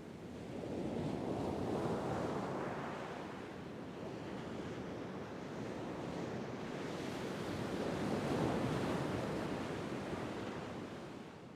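Ocean waves washing onto a shore, swelling and ebbing slowly with two broad surges, then fading out at the end.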